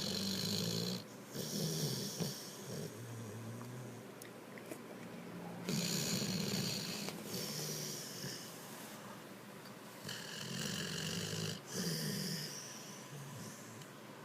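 Dog snoring in its sleep: a loud snoring breath about every four to five seconds, with quieter breathing in between.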